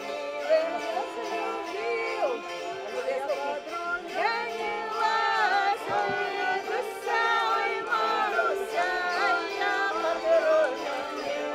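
Gusli, the Russian plucked string zither, playing sustained ringing notes, with voices singing over them, clearest from about four seconds in.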